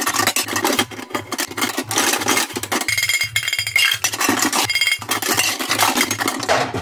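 A metal cooking pot clattering and knocking against other cookware as it is pulled out of a cupboard, over background music with a steady beat.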